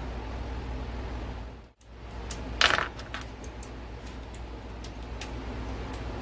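Small metal parts and tools clinking on a hard surface during an engine teardown: one loud, sharp metallic clink with a brief ring about two and a half seconds in, then several lighter ticks, over a steady low hum.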